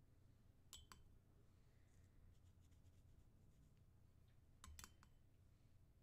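Near silence broken twice by a brief double click with a short glassy ring, about a second in and again about five seconds in: a wooden pencil tapping the rim of a glass jar of coffee paint.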